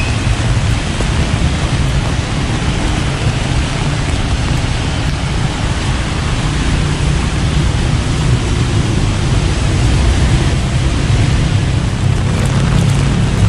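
Steady downpour of rain, with a continuous low rumble underneath.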